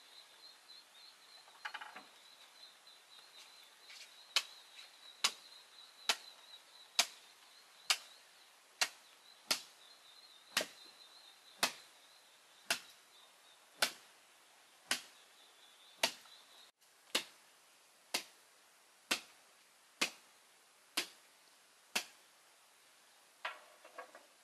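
Wood being chopped into chips with a long hand blade: sharp, evenly spaced strikes about once a second, some twenty in all.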